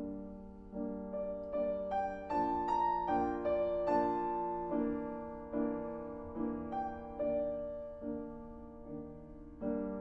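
Grand piano playing alone in a slow passage of chords and single notes, struck about once or twice a second, each one ringing and fading.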